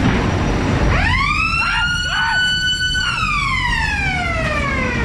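Ghost train scare effect: a siren that winds up about a second in, holds a high steady note, then slowly winds down. Under it runs the steady rumble of the ride car on its track.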